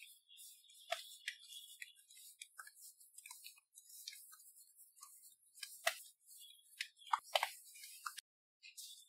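Pizza dough being kneaded by hand on a silicone pastry mat: the sticky dough smacks down and peels off the mat and fingers in irregular soft clicks and slaps, the loudest a few slaps about six and seven seconds in.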